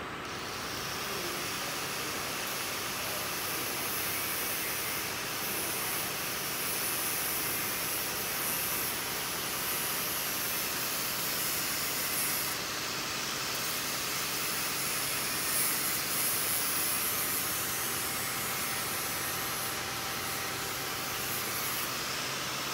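Cylinder block grinding and milling machine running: a steady whirring hiss that comes in at the very start, with a faint low hum underneath.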